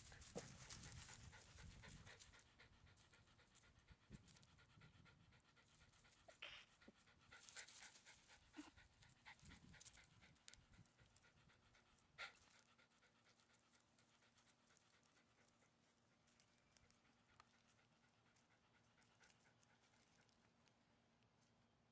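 Faint dog panting, strongest in the first few seconds and dying away about halfway through, with a couple of short sharp sounds in the middle.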